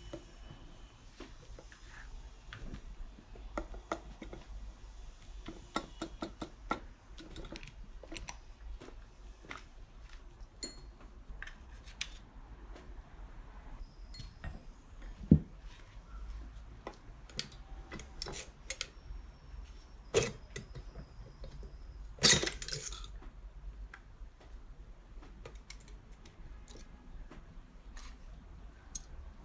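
Metal hand tools and parts of a Piaggio moped engine clinking, clicking and knocking as the engine is dismantled by hand. There is a sharp knock about halfway through, and a louder brief clatter about three-quarters of the way through.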